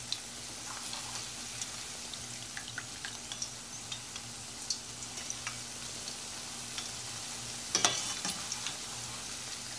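Onion pakoda deep-frying in hot oil, sizzling steadily with many small crackles, as a perforated steel skimmer turns the fritters over once one side is cooked. A louder clatter about eight seconds in.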